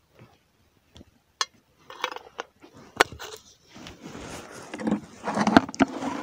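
A few sharp clicks, then rustling of dry reed stems and twigs, growing louder in the second half, as a fishing rod is moved out through them.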